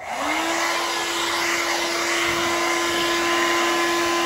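Handheld hair dryer switched on and running: its motor whine rises within a fraction of a second to a steady pitch over a steady rush of blown air.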